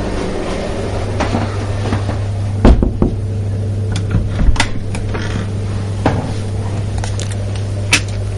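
A steady low hum with a handful of short, sharp knocks and clicks. The loudest knock comes about two and a half seconds in, and smaller ones follow at irregular intervals.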